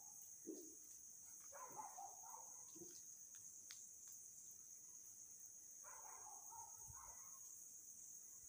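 Near silence: a steady high-pitched hiss, with faint scratches of a pencil drawing lines on paper about two seconds in and again near six seconds.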